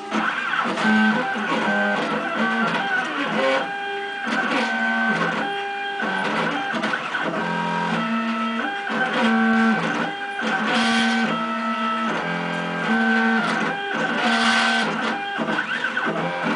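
Stepper motors of a CNC router whining as the axes move, the pitch jumping to a new steady tone every half second or so as each move changes speed, with several tones sounding together as more than one axis runs.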